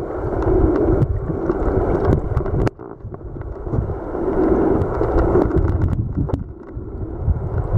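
Muffled rushing and gurgling of stream water heard through an underwater camera housing, with a heavy low rumble and scattered small clicks and knocks. The noise drops suddenly about a third of the way through, then builds back up.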